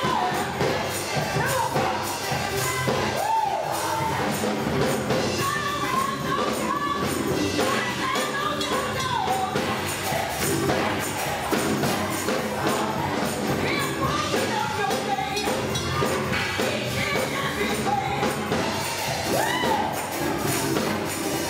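Live gospel music: a church choir singing with a band, over a steady percussion beat.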